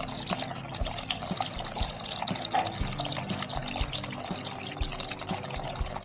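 Water trickling and splashing from the spout of a small cement tabletop fountain, falling in a thin stream into a pebble-filled pot. It cuts off suddenly at the end.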